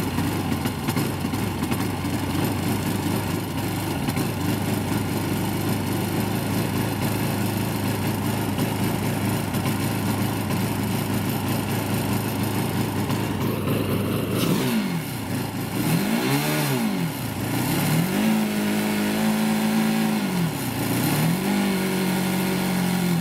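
Student formula race car's engine idling steadily, then blipped up and down a few times and held at a steady higher rpm twice, as for a sound-level test.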